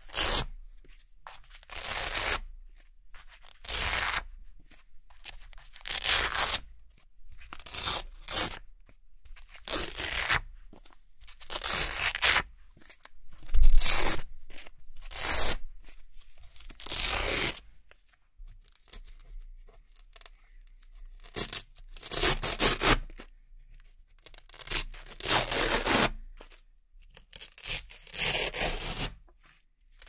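Red Velcro (hook-and-loop) circles being peeled one by one off a Velcro-covered board: a string of short ripping tears, one every second or two, with brief pauses between.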